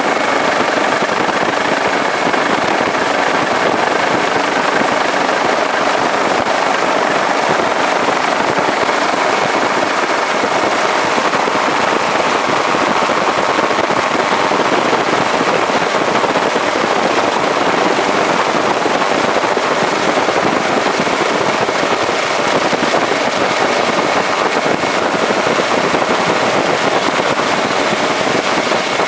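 Helicopter noise heard from on board: a steady, loud rush with a thin, constant high whine above it.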